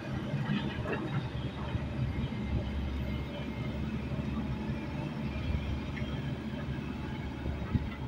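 Heavy diesel construction machinery running steadily with a low engine rumble.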